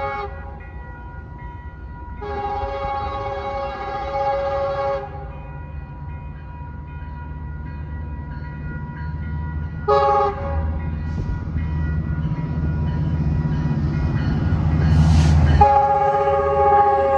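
Metrolink commuter train's diesel locomotive horn sounding a multi-note chord in blasts: a long one about two seconds in, a short one about ten seconds in, and another long one near the end, the long, long, short, long pattern of a grade-crossing signal. Under it the low rumble of the approaching locomotive grows steadily louder as the train comes up to pass.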